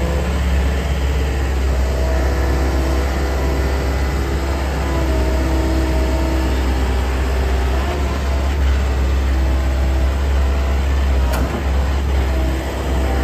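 Komatsu PC130LC-11 excavator's 97.2-horsepower diesel engine and hydraulics running steadily while the machine digs and dumps soil, with a brief sharp knock near the end.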